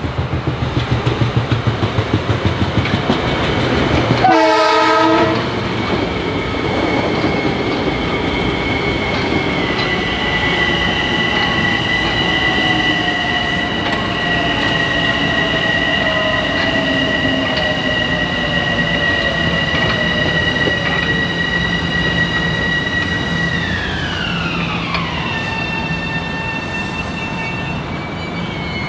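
Metro-North electric commuter train passing close by: wheels clatter rhythmically over rail joints, then a loud horn blast sounds for about a second. A high, steady whine follows from the train and drops in pitch together about 24 seconds in.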